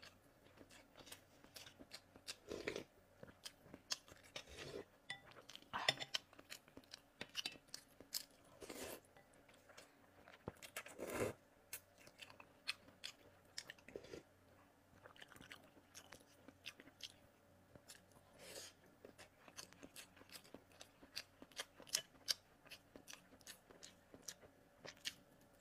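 Close-up mouth sounds of a person eating spicy glass noodles and boiled eggs: wet chewing with many small clicks and lip smacks, broken by a few louder, longer slurps as noodles are sucked in.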